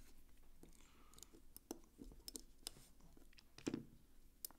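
Faint, scattered clicks and small metallic taps from a screwdriver and a metal folding knife being handled while the knife's screws are driven home, with the loudest click about three-quarters of the way through.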